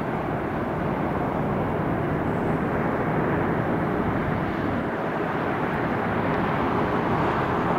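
Jet airliner engine noise near an airport: a steady rumble and rush with a faint steady whine.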